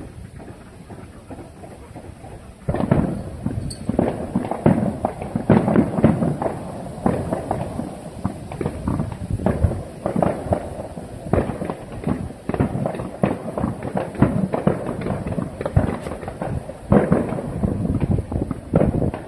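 Fireworks exploding in a rapid, dense barrage of bangs, beginning suddenly about three seconds in after a quieter stretch.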